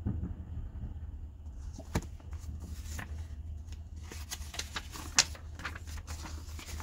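Paper rustling and crinkling as pages of a bound paper book are turned, starting about a second and a half in, with two sharper clicks near two and five seconds, over a steady low hum.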